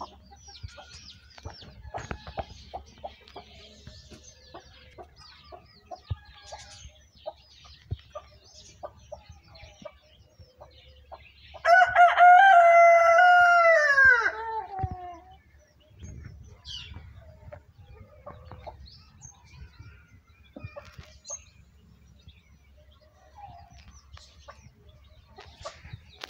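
A rooster crows once, about twelve seconds in: one long call of about three seconds that drops in pitch at its end. Faint scattered clicks and small chirps are heard around it.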